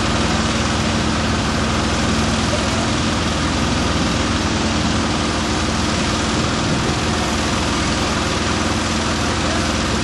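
Heavy brush truck's engine idling steadily.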